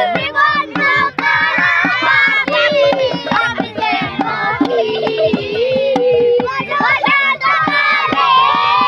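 A group of children and young people singing and shouting together in several overlapping voices, with claps or beats struck along with it.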